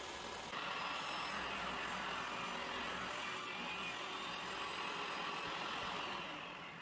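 DeWalt jobsite table saw running and cutting a shallow rabbet in a quarter-inch board, louder from about half a second in while the wood goes through the blade. Near the end the sound fades and its pitch falls.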